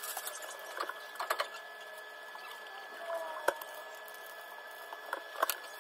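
Light scattered clicks, scrapes and short squeaks of a rubber-gloved hand wiping and smoothing the wet plaster of Paris bead along the porcelain toilet base, with one sharper click a little past the middle.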